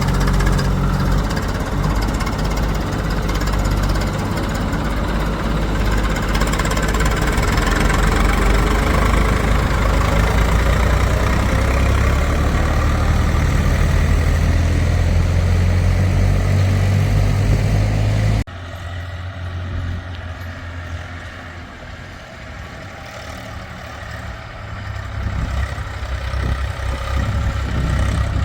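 Heavy diesel engines of earth-moving machinery running steadily. About two-thirds of the way through the sound drops suddenly to a quieter engine running, which grows louder again near the end.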